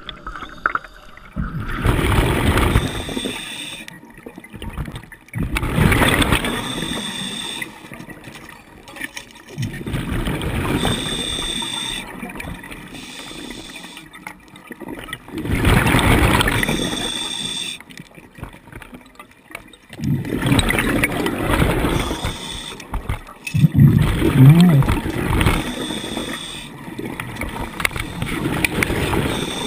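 Scuba diver breathing through a regulator underwater: about seven bursts of gurgling exhaust bubbles, one every four to five seconds, with quieter gaps for each inhale.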